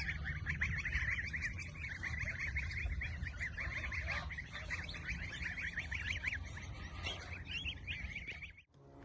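A dense chorus of birds chirping and twittering without pause, over a low steady rumble.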